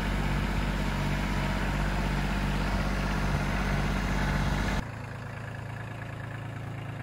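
Kubota LX2610's 26-horsepower diesel engine running steadily at idle close up; a little under five seconds in, the sound drops suddenly to a quieter, steady idle.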